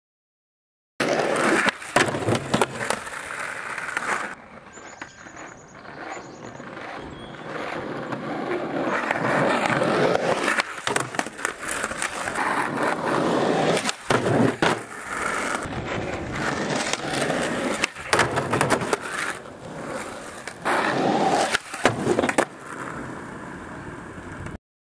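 Skateboard wheels rolling on asphalt, with tail pops, the board clacking down on landings, and trucks grinding and sliding on a low wooden box. It comes in several short clips that cut in and out abruptly.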